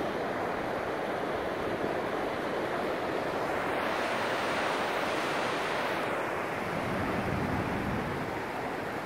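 Surf washing on a sandy beach, a steady rush of waves that swells louder and brighter in the middle as a wave breaks and runs up, then eases off.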